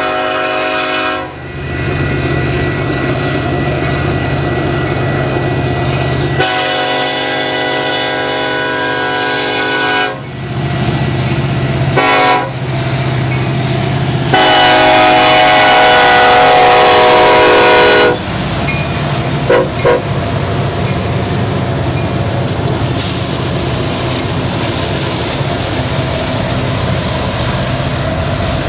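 Union Pacific diesel freight locomotives' multi-note air horn blowing the grade-crossing signal. The end of a long blast is followed by a long, a short and a final long blast, the last one loudest. After that the locomotives' diesel engines are heard going past with a steady low drone.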